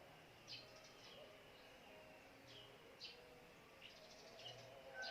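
Near silence with faint bird chirps: about seven short falling chirps scattered through, over a low steady hiss.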